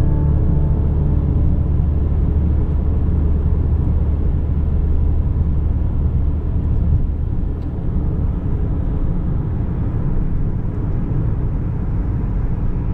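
Steady low rumble of a car in motion, heard from inside the cabin: road and engine noise at an even cruising pace.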